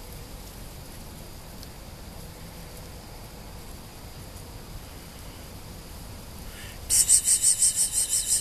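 Steady faint outdoor background, then near the end a sudden loud, high-pitched chirping that pulses evenly about six times a second.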